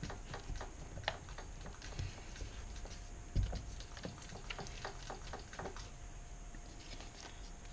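Wooden stir stick scraping and clicking against the bottom and sides of a plastic cup while mixing pigmented casting resin: a faint, irregular run of light clicks and scrapes, with one slightly louder knock about three and a half seconds in.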